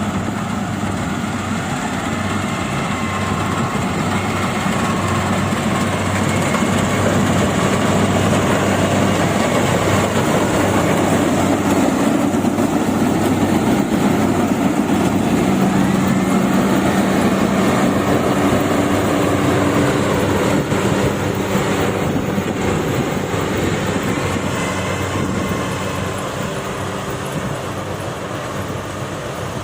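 Yanmar AW70V combine harvester running, its diesel engine and machinery making a steady mechanical noise with a low engine note. It grows a little louder near the middle and eases off toward the end.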